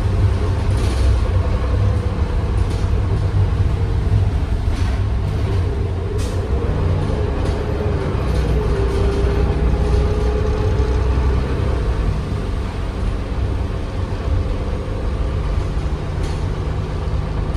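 City transit bus under way, heard from inside its passenger cabin: a steady engine drone and road rumble, with a few sharp clicks and a faint whine that wavers in pitch around the middle.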